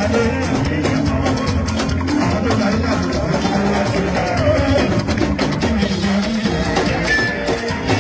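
Music with a steady drum-kit beat, bass and guitar.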